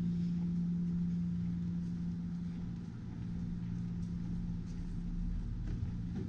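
A steady low machine hum over a low rumble, the hum easing off about halfway through.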